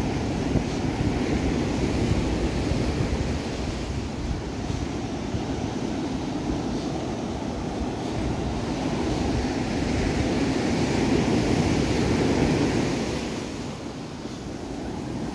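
Pacific surf washing onto a sandy beach, a steady rush that swells and then eases near the end, with wind buffeting the microphone.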